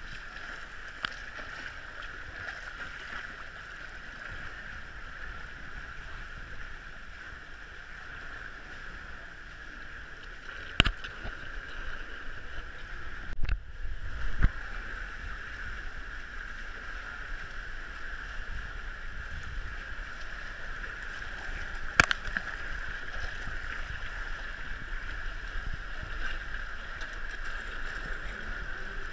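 Steady, muffled water noise from a camera held at the surface of an indoor swimming pool, with a few sharp knocks near the middle and one about two-thirds through.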